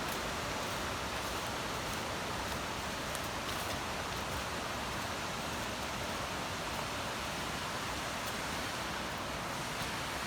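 Steady, even rushing of flowing creek water.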